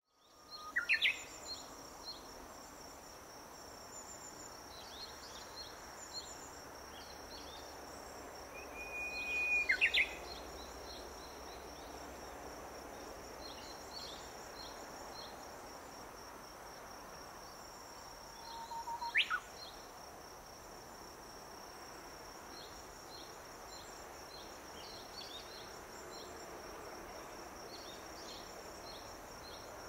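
Japanese bush warbler (uguisu) singing its "hoo-hokekyo" song three times, about nine seconds apart: each is a held whistle that breaks into a quick rising-and-falling flourish. A steady high thin whine and faint scattered high chirps run underneath.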